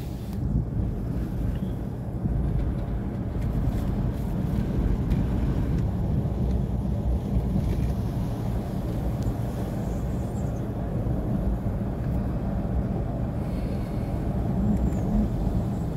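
Car engine and tyre noise heard from inside the moving car's cabin: a steady low rumble.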